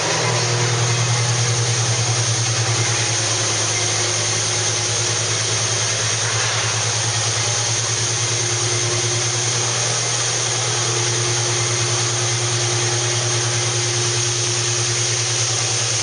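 Large industrial machinery running steadily: a deep, even hum with a fine fast pulse in it, under a constant hiss.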